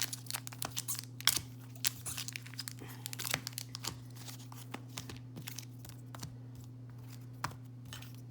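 Crinkly wrappers of Disney Lorcana booster packs crackling and rustling as the packs are handled and shuffled together by hand. The crackles come thick for the first few seconds, then sparser.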